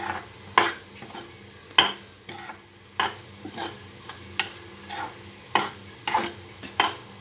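Metal spatula scraping and knocking against a metal kadhai as moong dal is stirred and roasted in ghee, about one stroke every half second to a second, over a low steady hiss.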